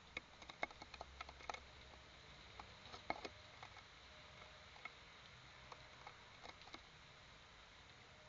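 Faint, irregular light taps and clicks: a quick run in the first two seconds, a louder one about three seconds in, then scattered single taps.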